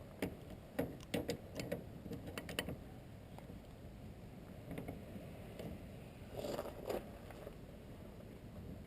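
Irregular small clicks, taps and scrapes of hand work as a nut is fitted and tightened on the installation tool's mounting post. They come in a busy run over the first few seconds and again briefly about six and a half seconds in.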